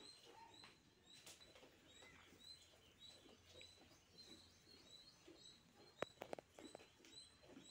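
Faint, high chirping of small birds, about two short chirps a second. A brief cluster of sharp clicks comes about six seconds in.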